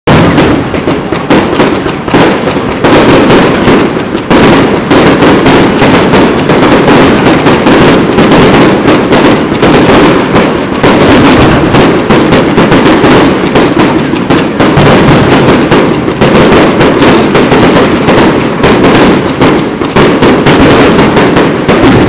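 Fireworks going off in a loud, dense, continuous barrage of rapid bangs and crackles.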